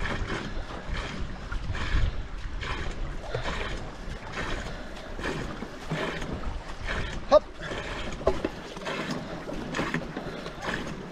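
Two-person racing canoe paddled at race pace: a stroke about every three-quarters of a second, each a whoosh of paddle through the water, over a steady wash of water noise. A brief high-pitched sound cuts in about seven seconds in.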